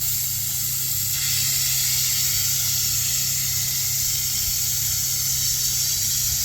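Alspray air siphon spray gun, run off an air compressor, spraying a mist of liquid wax and water drawn up from a bucket: a loud, steady hiss that cuts in suddenly.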